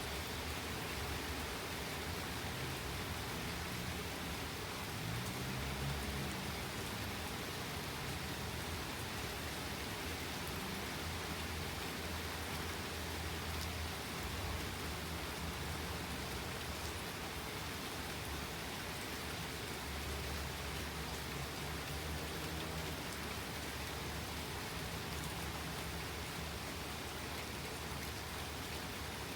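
Steady rain falling in a nighttime thunderstorm, an even hiss of drops, with low rumbles that swell and fade several times underneath.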